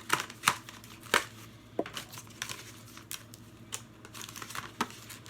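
Packaging of a clip-on LED ring light being opened by hand: irregular crinkling and tearing crackles, the sharpest in the first second or so.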